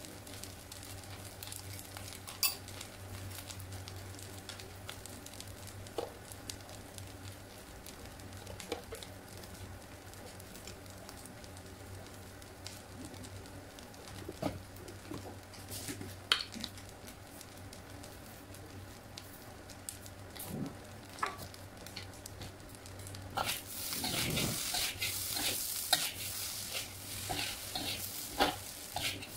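Fried rice sizzling quietly in a wok, with a low steady hum and a few small clicks. From about 23 seconds in, a metal spatula stirs and scrapes the rice around the wok, with much louder sizzling and rapid clatter.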